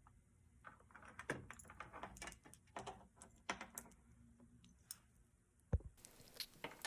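Paintbrush flicking short strokes of white acrylic onto a canvas: a faint, irregular run of quick taps and scratches, then a single low thump near the end.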